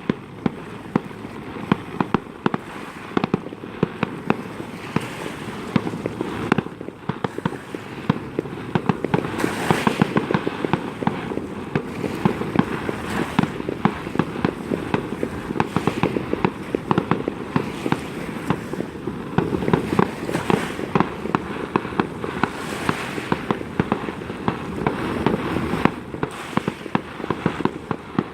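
Aerial fireworks display: a dense, continuous barrage of crackling and popping with frequent sharp bangs, swelling louder several times.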